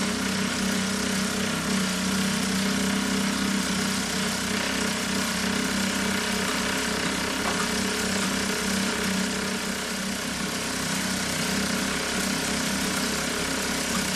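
Small model steam engine running fast and steadily: a steady mechanical hum with an even hiss of steam.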